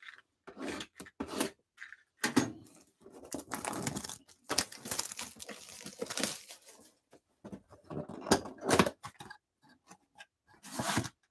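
Trading-card box and packs being handled and opened: irregular rustling, crinkling and tearing of wrapper and cardboard.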